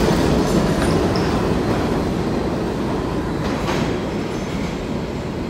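New York City subway train pulling out of an underground station and moving away down the tunnel, the rumble of its wheels on the track slowly fading.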